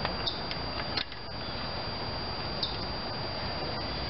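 A few faint, light clicks, about four in all, from small parts or tools being handled, over a steady background hiss.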